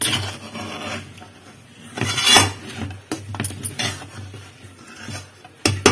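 Spatula scraping and knocking against a metal pan while stirring thick rice-flour uppindi. There is a scraping stretch at the start, a louder scrape about two seconds in, then a few short knocks.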